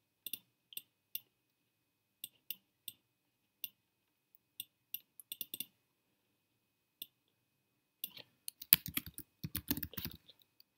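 Computer mouse clicks, single and in quick runs, spaced out over several seconds. About eight seconds in they give way to fast typing on a computer keyboard, louder than the clicks.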